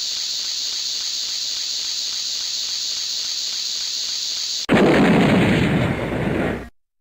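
A steady high hiss, then about two-thirds of the way in a sudden loud explosion sound effect that rumbles for about two seconds and cuts off abruptly.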